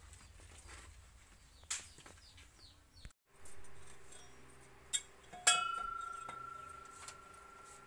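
Birds chirping over quiet outdoor ambience, then a light click and a sharp metallic clank about five and a half seconds in, a metal cooking pot or bucket knocked, ringing on and slowly dying away.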